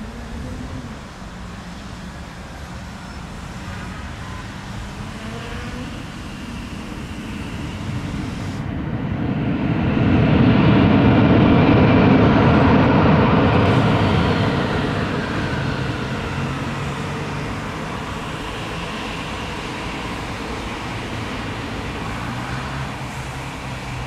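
Airbus A319 jet engines, building up to a loud peak about ten seconds in, holding for a few seconds, then fading to a steady lower rumble.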